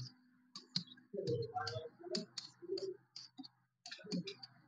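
Marker writing on a whiteboard: a string of short, irregular clicks and scrapes as the letters are drawn.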